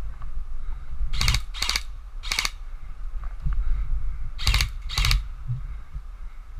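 Airsoft electric gun firing five short bursts of rapid shots: three in quick succession in the first couple of seconds, then two more about two seconds later.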